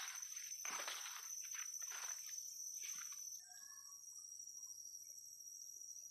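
Steady high-pitched insect drone in tropical forest, with footsteps rustling through leaf litter and undergrowth four or five times in the first three seconds; after that only the insects and a few faint chirps.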